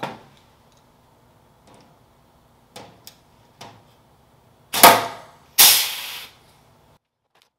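Pneumatic pop-rivet puller setting blind rivets in an aluminium fuselage skin: a few light clicks, then two loud snaps about a second apart, the second trailing off in a short rush of air.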